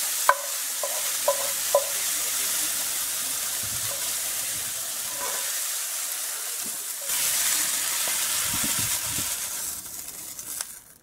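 Hot frying pans sizzling with a steady hiss as ground beef and then pan-grilled Brussels sprouts are tipped out, with a few knocks of a wooden spoon against the pan near the start. The sizzle grows louder about seven seconds in and fades away near the end.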